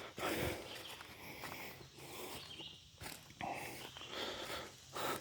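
Footsteps of a person walking a woodland trail, soft crunches coming roughly once a second.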